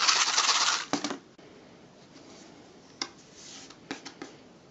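Rice grains running through a paper rain stick, a cardboard tube with a folded paper spiral inside, for just under a second as it is tipped. A few light knocks of the cardboard tubes being handled follow.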